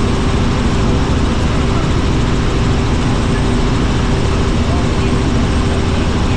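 Helicopter engine and rotor noise inside the cabin in flight: a loud, steady drone with a constant hum.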